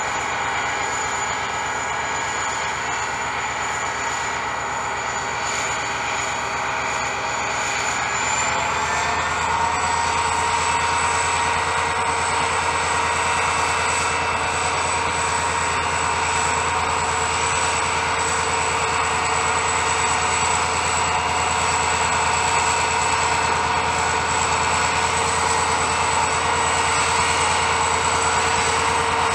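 GM GT22CW diesel locomotive's EMD two-stroke engine running steadily while hauling a loaded freight train, with a high whine over its drone. About eight seconds in, the whine rises slightly in pitch, a deeper low drone joins and the sound grows a little louder.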